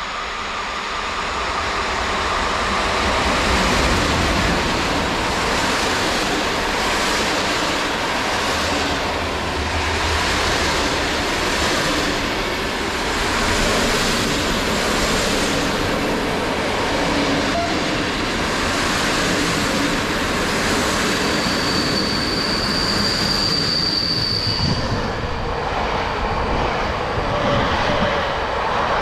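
Intercity passenger train hauled by an EP08 electric locomotive running past: a steady rush of wheels on rail, growing louder over the first few seconds, with repeated wheel clatter. A high-pitched wheel squeal sounds for a few seconds near the end.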